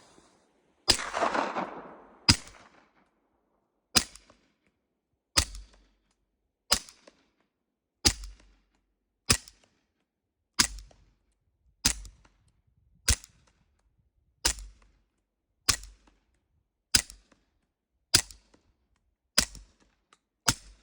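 A suppressed Beretta M9A4 9mm pistol with a Rugged Obsidian 9 suppressor firing a magazine of mostly subsonic rounds: about sixteen shots at a steady pace of roughly one every 1.3 seconds. The first shot, about a second in, is followed by a longer rushing trail, while the rest are short, clipped reports.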